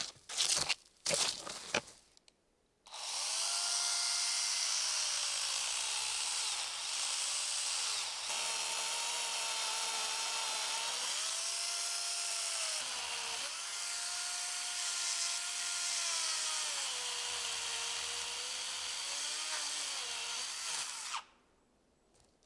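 A few sharp knocks, then an electric power tool such as a drill runs steadily for most of the time into wood. Its motor whine drops in pitch under load and climbs back several times before it cuts off suddenly near the end.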